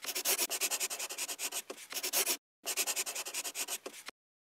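Pencil scribbling on paper in quick, scratchy strokes, with a short break about two and a half seconds in, stopping abruptly near the end.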